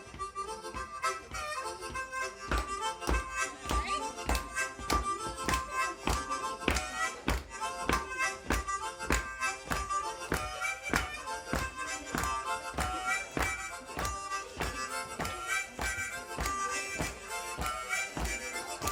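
Harmonica playing a melody over a steady beat of about two strokes a second.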